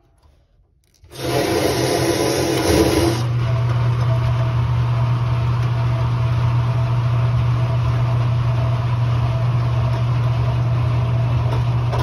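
Electric motor of a water well pump starting up after the pressure switch is turned back on. About a second in comes a loud rush of noise lasting about two seconds, which settles into a steady low running hum with a fainter higher tone above it.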